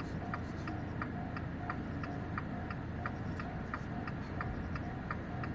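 Japanese railway level-crossing warning bell ringing its steady 'kan-kan-kan', about three even strikes a second, signalling that a train is approaching.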